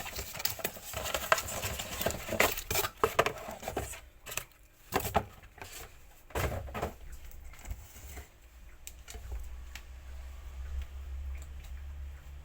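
Irregular clicks and clatter of small hard parts and hand tools being handled, dense in the first half and sparser later, over a low rumble in the second half.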